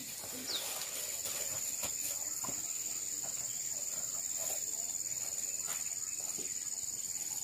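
Insects shrilling in a steady, high-pitched, quiet drone, with a few faint scattered ticks.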